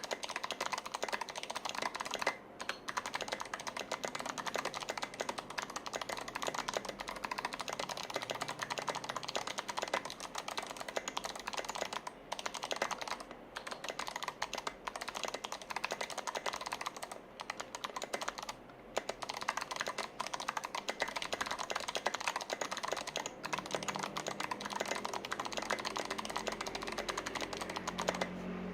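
Fast continuous typing on a Kira96 mechanical keyboard with Kailh BOX Jade clicky switches, a dense stream of sharp, really loud clicks, with a few short pauses.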